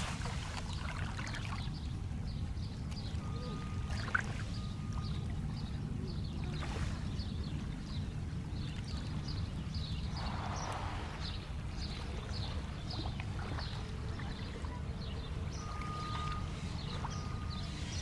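Small waves of Lake Michigan lapping and washing over a pebbly shoreline, over a steady low rumble. There is one brief click about four seconds in.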